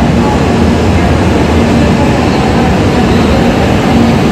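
E5 series Shinkansen pulling out alongside the platform: a steady rumble of the moving train with a faint low hum.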